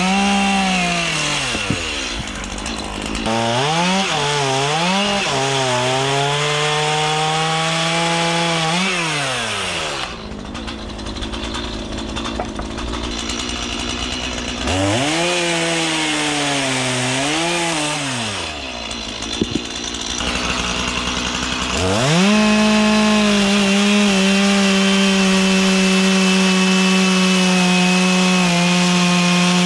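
Petrol chainsaw cutting into a wooden log, the engine revving up and down repeatedly. It drops back twice, then revs up about three-quarters of the way through and holds steady at full throttle.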